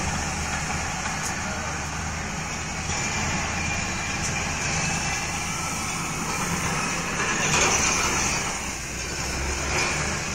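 Steady low engine hum, swelling briefly about seven to eight seconds in.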